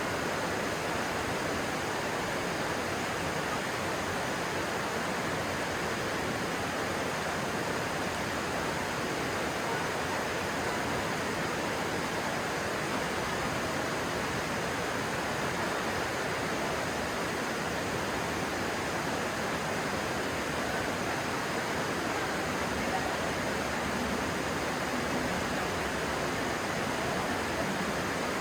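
Stream water rushing, a steady, even noise.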